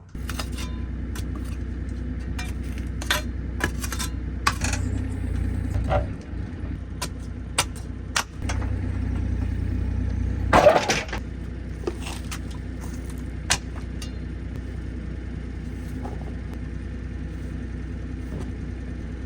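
An engine running steadily with a low drone, with scattered knocks and clatters over it; the loudest clatter comes about ten and a half seconds in.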